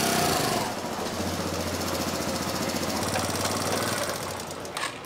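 Small motorcycle engine running close by with a rapid, even chug, then switched off with a click near the end.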